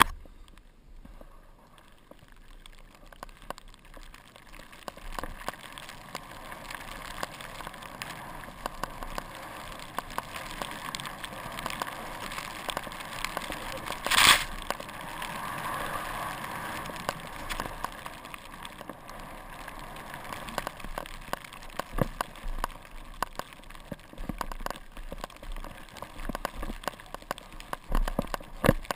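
Skis hissing through deep powder snow, with a constant crackle of snow and wind against the helmet camera's microphone. About halfway through, a loud, brief burst as a spray of powder covers the camera.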